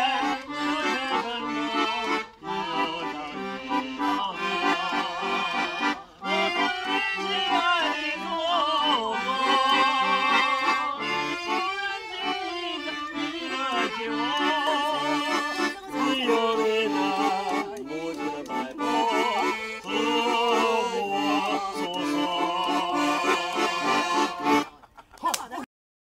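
Piano accordion playing a lively tune with a stepping bass, a voice singing along over it with a wavering pitch. The music stops abruptly near the end.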